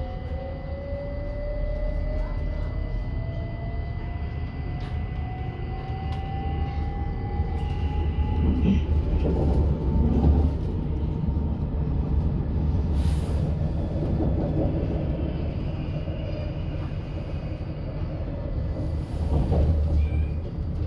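Electric commuter train heard from inside the passenger car as it pulls away from a station: the traction motors' whine rises steadily in pitch over the first ten seconds or so as the train accelerates, over a continuous low rumble of the wheels on the track.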